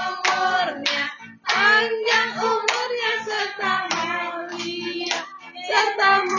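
Voices singing a birthday song, with hands clapping along about twice a second.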